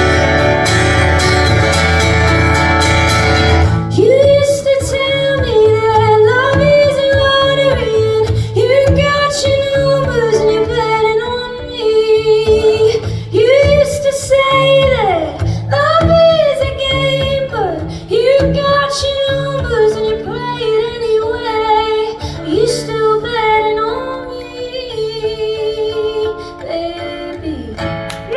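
Live band music: a loud full-band chord with guitar rings for the first few seconds, then a woman sings long rising and falling phrases over sparse guitar and bass to the end of the song.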